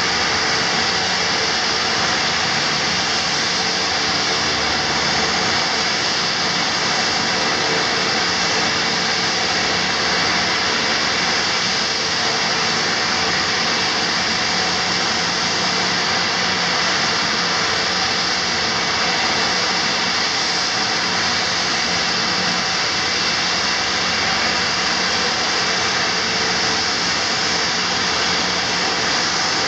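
Turboprop engines of a Dornier 228 running at ground idle: a loud, steady rushing noise with a constant high whine that does not change.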